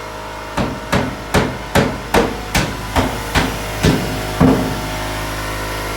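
Hammer striking, about ten blows in an even rhythm of roughly two to three a second, stopping about four and a half seconds in.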